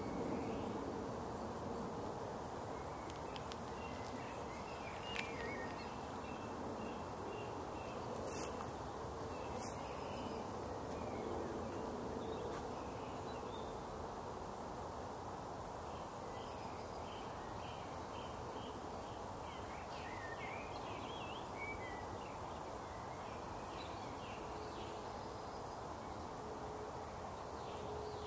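Woodland ambience: a steady background rush with faint, scattered bird calls and a couple of brief clicks about eight and ten seconds in.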